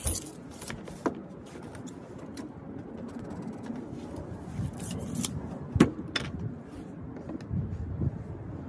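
Hand tools being handled against a wall: a tape measure is pulled out and set down and a stud finder is pressed flat on the wall, giving a few sharp clicks and knocks, the loudest just before six seconds in.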